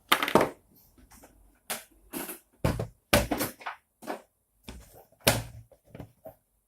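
Irregular knocks, taps and clicks of acrylic 3D-printer frame parts and small hardware being handled and fitted together, about a dozen separate hits with the loudest near the start and around the middle.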